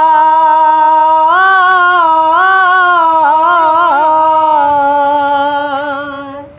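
A man singing an unaccompanied Bengali folk song, holding one long note that wavers and bends in the middle and fades out near the end.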